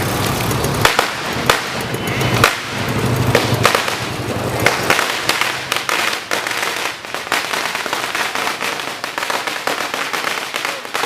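Sinturon ni Judas, a long Filipino belt of firecrackers, going off in a rapid, continuous crackle of small bangs, with louder single cracks standing out now and then, most of them in the first few seconds.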